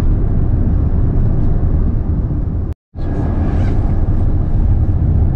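Steady low rumble of a Volkswagen Kombi van driving on an asphalt highway, engine and road noise heard from inside the cab. The sound drops out completely for a split second about three seconds in, then carries on as before.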